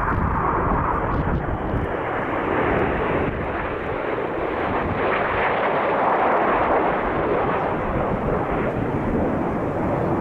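A formation of five BAE Systems Hawk T1 jets flying past, the steady rushing noise of their Rolls-Royce Turbomeca Adour turbofan engines, a little louder around the middle.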